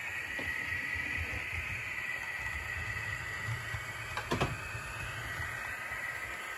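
Model diesel locomotive's small electric motor running with a steady whine and a low rumble as it moves along the track, with a few sharp clicks about four seconds in.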